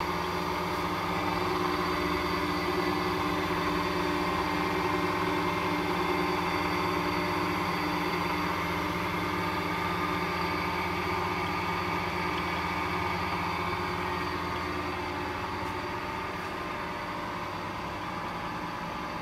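Weinig moulder running under test: a steady hum from its motors and spindles, with several steady tones over a machine hiss, easing off slightly near the end.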